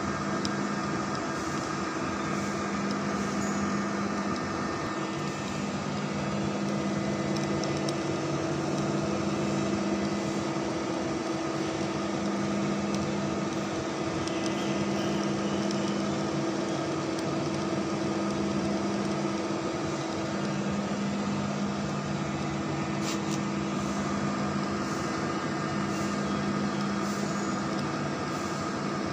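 Engine lathe running steadily while a boring tool cuts the inner bore of a large metal die blank. It is a continuous machine hum and gear whine, with a low tone that swells and fades every few seconds.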